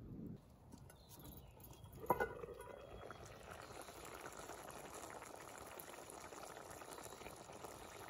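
A knock about two seconds in, then tomato pasta stew bubbling steadily at a simmer in a cast-iron Dutch oven over a wood fire.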